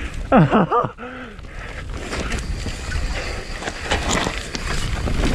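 Wind rumbling on a helmet-mounted action camera's microphone and mountain bike tyres rolling over a dirt trail, getting louder as the bike gathers speed after a brief shout in the first second.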